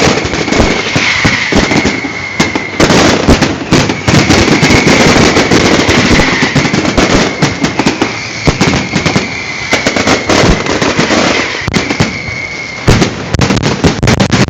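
Fireworks display going off in a dense, continuous barrage of bangs and crackling, with a steady high tone underneath that stops about thirteen seconds in.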